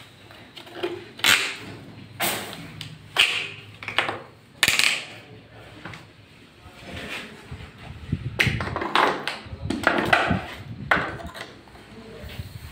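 Plastic tile-leveling wedges clicking and scraping as they are pushed by hand through the clips between wall tiles, drawing the tile edges flush. A few separate sharp clicks come in the first half, and a busier run of clicks and scraping comes later.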